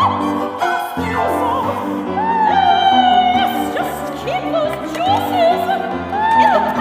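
Operatic female singing over piano and violin accompaniment. The voice runs through quick ornamented figures, and about two seconds in it holds a long high note with vibrato.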